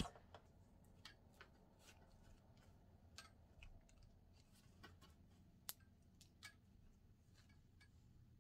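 Near silence with faint, scattered small clicks and light handling noises, one sharper click just before the six-second mark.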